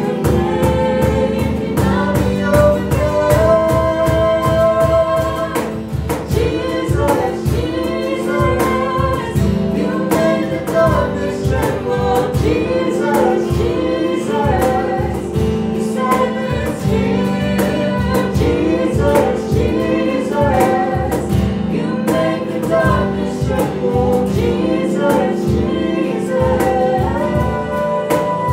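Small church worship band performing a worship song: several voices singing together over strummed acoustic guitar and electric guitar, with a steady, even beat.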